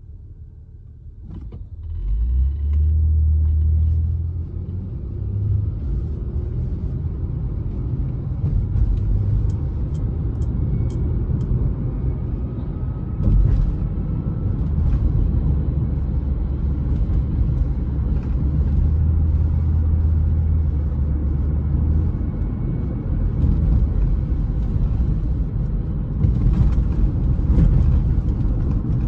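Car interior: a low rumble of engine and tyres. It is quieter while the car waits at a light and swells about two seconds in as the car pulls away, then runs on steadily as it drives.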